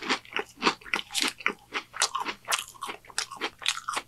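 Close-up chewing of a crisp battered onion ring: a steady run of crunches, about three a second.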